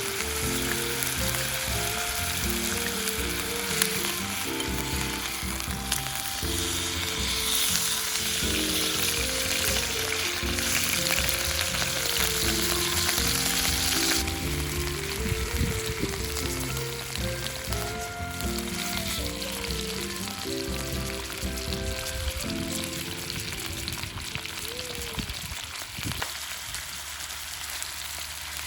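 Food sizzling as it fries in a hot pan, with a steady hiss that is loudest in the middle, over background music.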